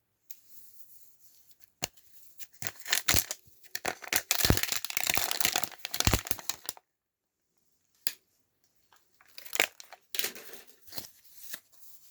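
Packaging being torn open and crinkled by hand during unboxing, in irregular tearing and rustling spells with sharp crackles. The longest run comes a few seconds in, then a short pause and more tearing near the end.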